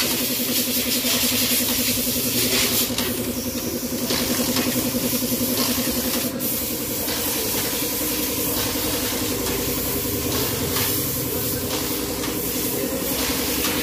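Small motorcycle engine running steadily at idle, with a steady hiss over it and a couple of brief clicks.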